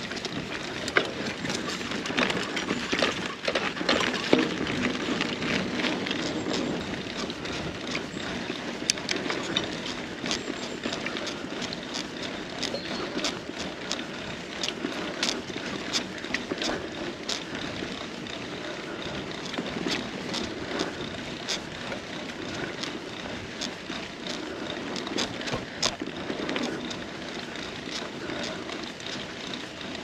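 Carrera Hellcat mountain bike being ridden along a trail: steady tyre noise with frequent sharp clicks and rattles from the bike.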